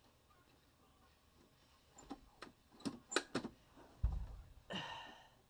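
Handling noises at a throttle position sensor connector as multimeter probes are pushed in to back-probe it: a few sharp clicks about two seconds in, a dull knock about four seconds in, and a brief rustle just after.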